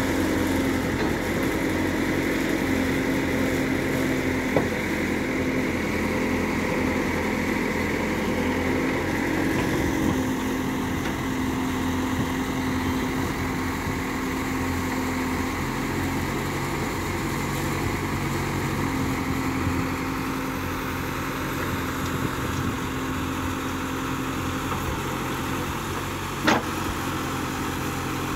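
Diesel engine of a Case backhoe loader running steadily while the backhoe digs soil and loads it into a trolley. A short sharp clank sounds a few seconds in, and a louder one near the end.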